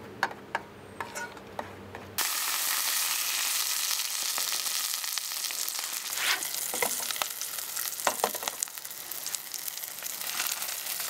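Sausages sizzling loudly in a stainless steel frying pan on a portable gas stove, starting suddenly about two seconds in after a few light clicks, with occasional taps and scrapes of a fork in the pan.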